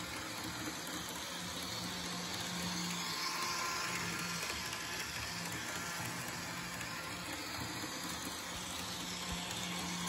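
Bachmann Thoroughbred model train running in reverse around an oval of track: a steady whir of the locomotive's small electric motor and the rolling of the wheels on the rails, swelling slightly as the cars pass close near the end.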